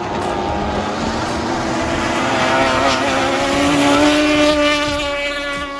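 Historic racing hydroplane's outboard engine running at high revs as the boat speeds past at close range, over the hiss of its spray. The pitch dips slightly, then climbs, and the sound is loudest about four seconds in as the boat goes by.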